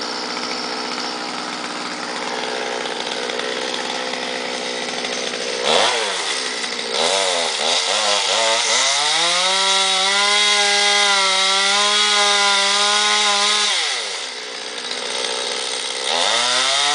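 Stihl MS 200 two-stroke chainsaw running, revved up and down several times about six seconds in, then held at high speed cutting through pine wood. It drops off briefly near the end and revs back up.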